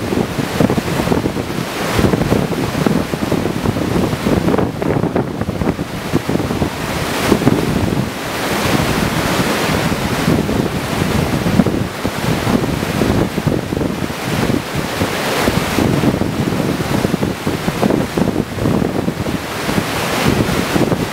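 Big-volume river whitewater at high flow, a breaking standing wave rushing and churning steadily, with wind buffeting the microphone in gusts.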